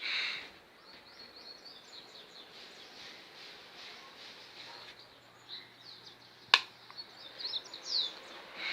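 Small birds chirping in quick, sweeping calls against a steady background hiss, with one sharp click about six and a half seconds in.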